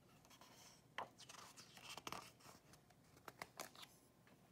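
Faint rustle and scrape of a picture book's paper page being turned by hand, with a soft tap about a second in.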